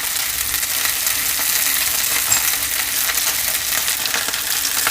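Chicken legs coated in garlic, black pepper and coriander seed sizzling steadily as they sear in a hot pot. The skin is being browned until it tightens.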